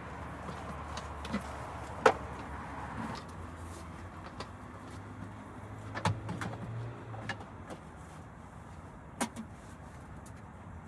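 A few sharp knocks, the loudest about two seconds in and others near six and nine seconds, over a low steady hum and a background noise that eases off after about three seconds.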